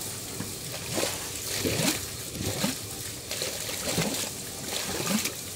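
Muddy water gurgling and splashing as it surges up out of a newly drilled well's casing pipe, in pulses about once a second. Compressed air is being blown down the well to flush out sand and mud after drilling.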